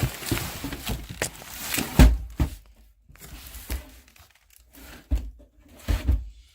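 Packaging being torn and crumpled, followed by a few sharp knocks as things are handled on a hard surface.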